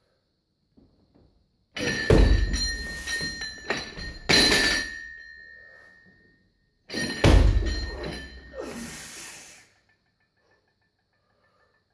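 A loaded Olympic barbell with bumper plates being lifted: two heavy thuds about five seconds apart, each followed by the plates and bar rattling and a lingering metallic ring.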